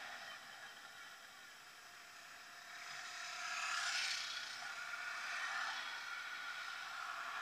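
Honda NSR50's small two-stroke engine and the wind rush of riding, heard from an on-bike action camera. The sound drops low about a second in as the bike slows, then swells again around three to four seconds as it accelerates away.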